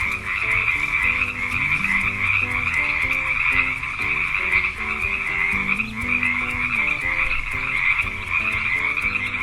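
Chorus of frogs calling without a break in a dense, high-pitched croaking. A simple tune plays quietly underneath.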